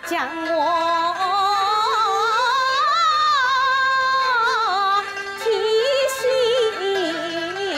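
Huangmei opera music with a traditional Chinese ensemble. A high, wavering melodic line with vibrato climbs to a long held note around the middle, then drops into a lower phrase over steady accompaniment.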